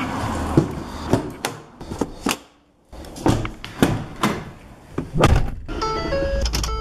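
A series of sharp knocks and thuds, broken by a brief silence about two and a half seconds in; music with held notes comes in near the end.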